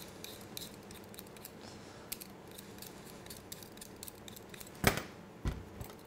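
Hand vegetable peeler scraping the skin off a raw potato in a quick run of short, faint strokes. Two louder knocks come about five seconds in, half a second apart.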